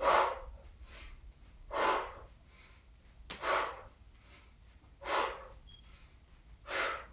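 A woman breathing hard in time with arm-swinging exercise: five short, audible breaths, each about half a second long and spaced roughly a second and a half to two seconds apart.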